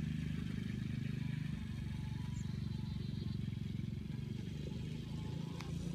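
A small engine running steadily at a constant low pitch.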